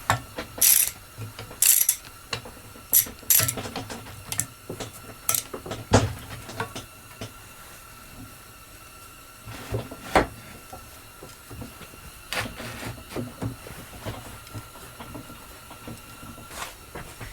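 Irregular clanks, clicks and short scrapes of tools and metal being handled on a workbench, over a faint steady high hum.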